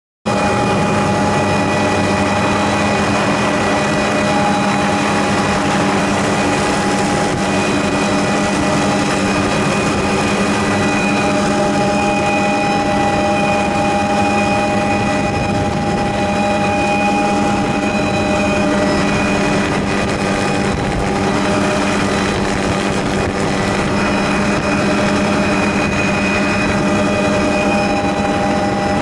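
Helicopter in flight heard from inside its open-doored cabin: a steady engine whine over rotor and wind noise, starting suddenly and holding unchanged throughout.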